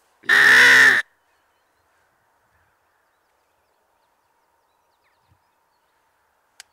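A single loud, harsh caw from a mouth-blown crow call, lasting under a second near the start, used to lure crows to the decoys. A faint click follows near the end.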